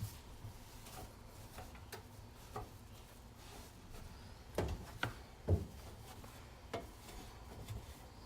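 Light knocks and clicks with some rubbing, as things are handled and wiped. A few louder knocks come a little past the middle.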